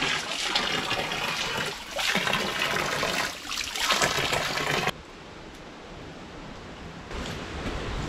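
A thin spout of spring water pours from a rock opening and splashes onto cupped hands and a stone basin, its sound swelling and dipping as the hands move in the stream. About five seconds in it cuts off abruptly to a faint steady hiss.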